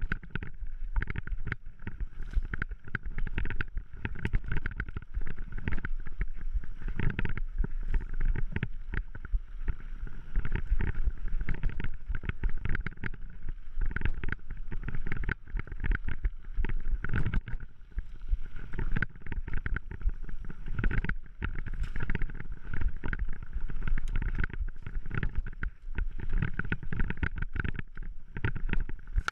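Mountain bike ridden fast along a dirt singletrack, heard from a handlebar-mounted camera: wind buffeting the microphone and tyres running on dirt, with frequent clattering knocks from the bike jolting over bumps.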